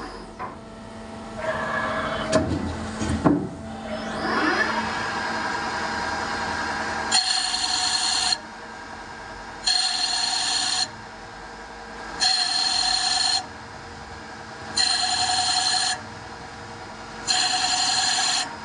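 CNC machine running a dry-run program without cutting: some mechanical clatter and two knocks in the first few seconds, then a steady hum, then five whines about a second long that repeat every two and a half seconds as the machine moves through its cycle.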